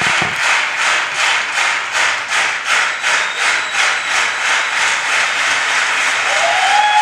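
A large audience clapping in unison, about three claps a second, which loosens into steady applause, with a cheer rising near the end.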